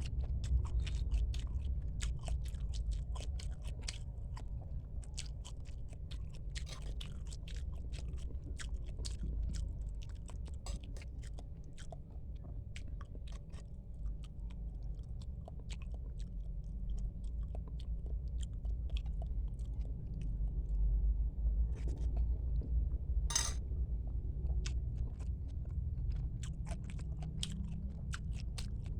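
Close-miked chewing of bakso meatballs, with many small wet mouth clicks over a low rumble. A brief louder burst of noise comes about 23 seconds in.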